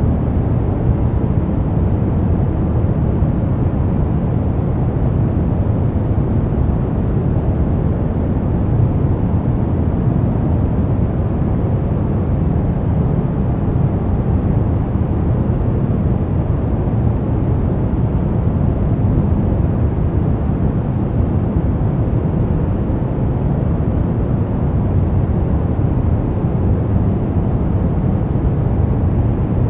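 Steady brown noise: an even, deep rumbling hiss, strongest in the bass and thinning out toward the treble, with no change in level.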